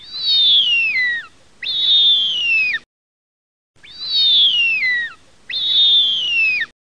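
Bird-of-prey scream sound effect: two long hoarse screeches that each slide down in pitch, then the same pair of screams again.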